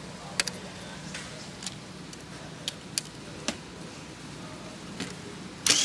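Scattered small sharp clicks and taps of a TV's T-Con board, its ribbon-cable connectors and screws being worked loose by hand. Near the end comes a short, louder scraping rustle.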